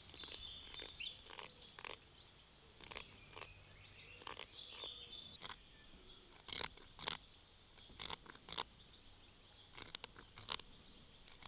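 Small blade of a Victorinox pocket knife shaving and scraping inside a hole in wood to widen it: a run of short, irregular, crisp cutting crackles.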